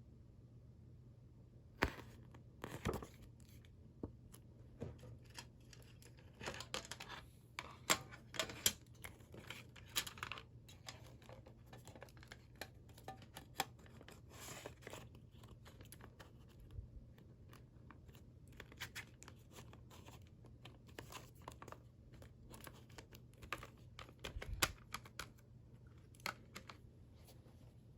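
A CD and its packaging being handled and unwrapped: irregular tearing and crinkling of wrapping with scattered sharp clicks, over a faint steady low hum.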